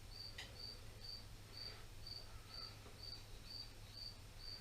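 A cricket chirping steadily, short high chirps about twice a second, faint over a low steady hum, with a faint click about half a second in.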